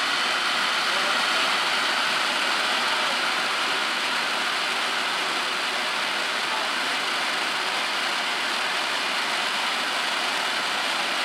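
Ground firework fountain spraying sparks with a steady, even hiss that holds at one level throughout.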